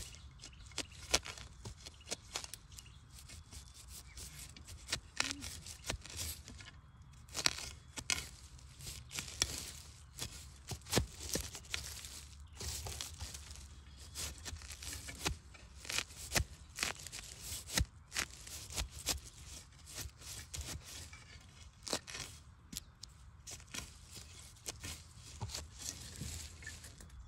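A metal digging blade scraping and crunching into earth and dry bamboo leaf litter around a bamboo shoot, in irregular strikes and scrapes as the soil is dug away.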